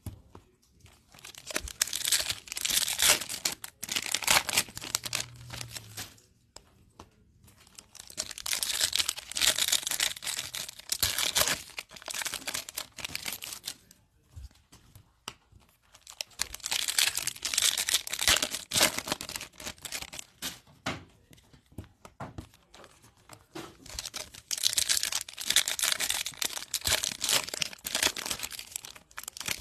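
Topps Chrome Sonic trading-card foil packs being torn open and crinkled in four bouts, about one every eight seconds. Quieter handling of the slick chrome cards comes in between.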